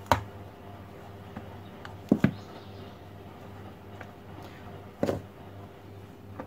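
A cup scooping flour from a metal bowl and tipping it into a wide wooden mixing bowl, with three short knocks about two and a half seconds apart as the cup strikes the bowls, over a faint steady hum.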